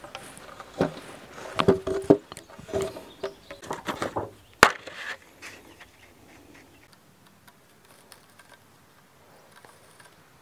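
Knocks and thumps of a heavy timber beam being shifted and set against wooden sawhorses, a run of them over the first few seconds with one sharp knock about four and a half seconds in. Faint rustling follows as a paper template is laid on the wood.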